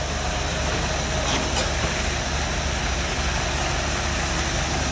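Concrete boom pump's diesel engine running steadily as concrete is pumped through the boom hose, with a couple of faint knocks about a second and a half in.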